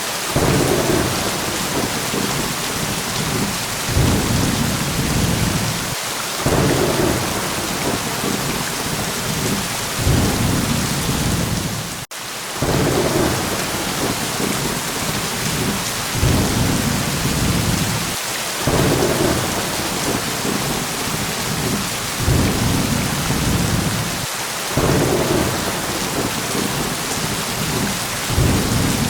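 Steady rain hissing down, with low thunder rumbles swelling in every few seconds. There is a momentary dropout about twelve seconds in.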